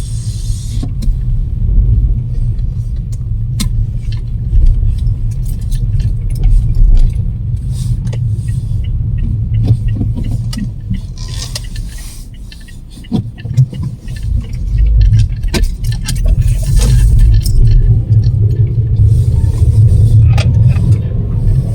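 Strong storm wind buffeting the microphone in uneven gusts, heard as a heavy low rumble that eases briefly about two-thirds of the way through, with scattered clicks and short hissing surges.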